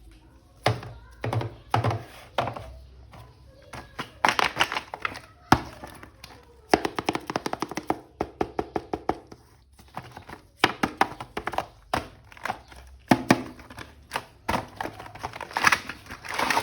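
Hands unboxing a toy action figure: plastic packaging clicking, tapping and crinkling in irregular bursts, with a fast run of clicks around the middle.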